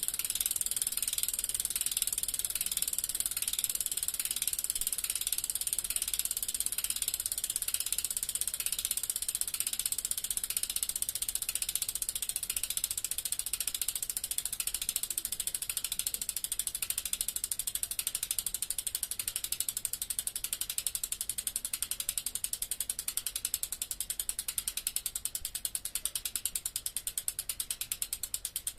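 Bicycle freewheel ratcheting: the pawls in the rear hub tick rapidly and evenly as the wheel coasts or spins without pedalling.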